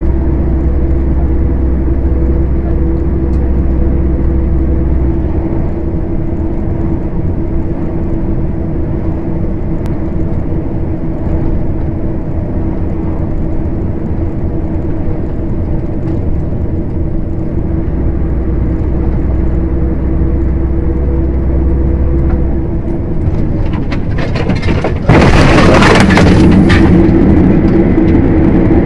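Steady engine and road noise from inside a moving vehicle's cab, with a held hum tone. About 25 seconds in the sound jumps suddenly louder with a brief harsh, crackling burst, then carries on as a louder steady drive drone.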